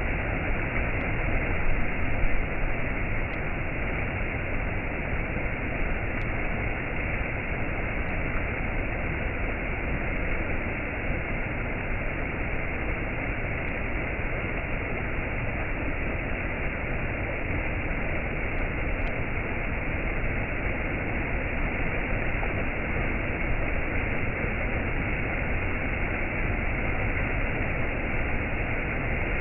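Steady, even rushing noise, with a brief louder swell about two seconds in.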